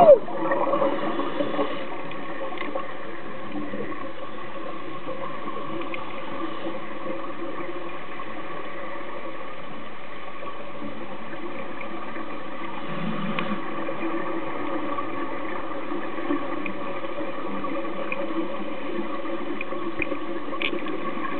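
Steady underwater ambience picked up through a camera's underwater housing: a constant muffled water hiss with a faint hum.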